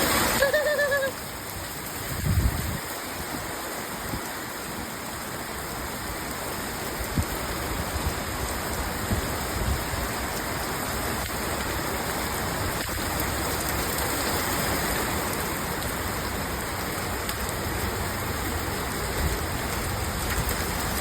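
Steady rain mixed with hail, a continuous hiss with a few scattered faint ticks. It drops in loudness about a second in.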